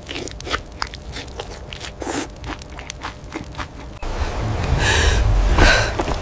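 Wet crunching and chewing as raw meat is bitten and torn. About four seconds in, it gives way to a deep low rumble with two heavy breaths less than a second apart.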